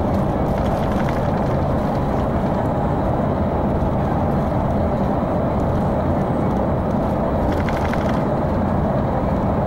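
Steady engine and road noise of a coach bus driving at speed, heard from inside the passenger cabin.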